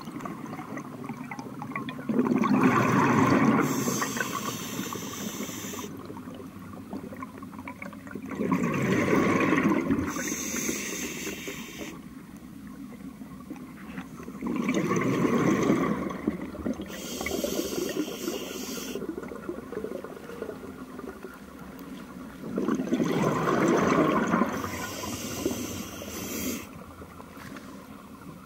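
Scuba diver breathing through a regulator underwater: four breaths, about one every six seconds, each a bubbling rush of exhaled air with a higher hiss just after it, over a quieter steady hiss.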